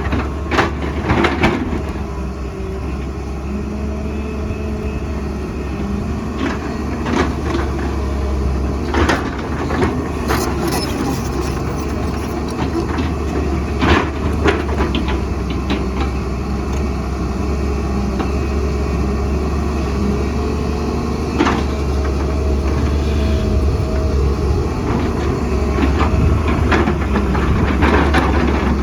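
Excavator's diesel engine running steadily under work, with scattered knocks and clatter of rock and earth being dug and dropped.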